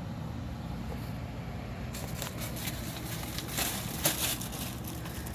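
Danby 50-pint dehumidifier running with a steady low hum from its fan. Scattered clicks and rustles start about two seconds in, with a sharper knock about four seconds in.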